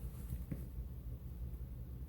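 Quiet room tone with a steady low hum and one faint light tap about half a second in.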